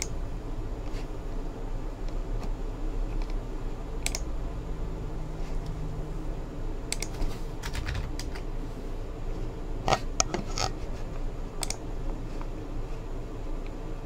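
Computer keyboard typing in short, irregular bursts of key clicks, with pauses between them, over a steady low hum of room tone.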